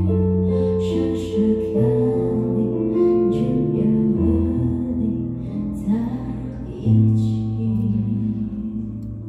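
A woman singing into a microphone, accompanied by a Nord Electro 6D stage keyboard playing long held chords over a low bass line.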